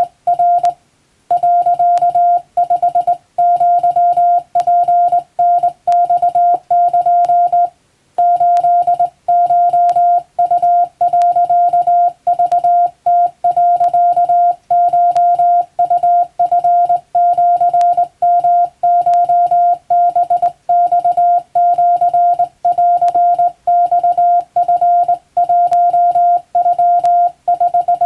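Japanese wabun Morse code sent on a telegraph key: a single steady tone keyed on and off in short dots and longer dashes, with longer pauses between groups, about a second in and about eight seconds in.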